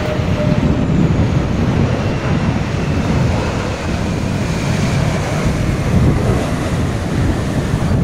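Gusty wind buffeting the microphone, over the engine noise of an Embraer E190 jet airliner rolling down the runway just after touchdown. A faint high whine falls slowly in pitch through the middle.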